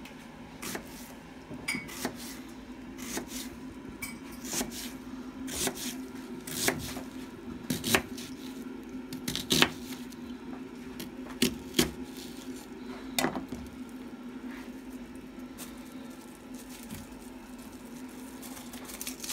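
Kitchen knife slicing an onion into half-rings on a wooden cutting board: irregular sharp knocks of the blade striking the board, about one or two a second, thinning out after about thirteen seconds.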